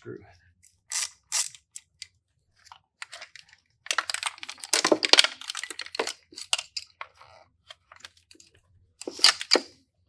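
Handling noises as an outboard's rectifier regulator and its wiring are worked loose by hand: scattered clicks and rattles, with a longer stretch of scraping and rustling about four to six seconds in.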